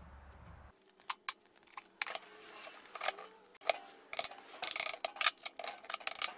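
Hand tools clicking and scraping against the moped's metal brake and frame parts. Two sharp clicks come about a second in, then a run of irregular small clicks and rattles.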